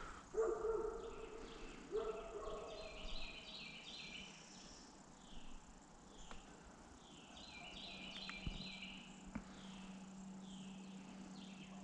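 Woodland ambience of wild animal calls: a repeating series of high chirps, with two louder, lower calls near the start. A couple of short clicks come later, along with a faint steady hum.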